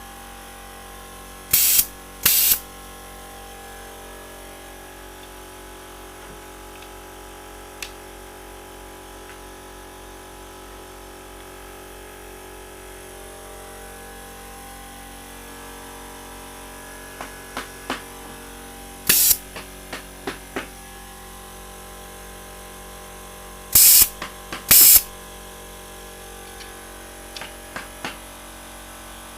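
Pneumatic nail gun firing five times, each shot a short, sharp burst with a hiss of air: two in quick succession near the start, one a little past halfway, and two close together later on. Light clicks and taps of the tool being handled fall between the shots, over a steady hum.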